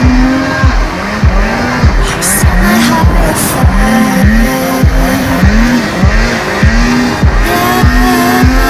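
Electronic dance music: a steady, regular kick drum with pulsing synth lines that glide up and down in pitch.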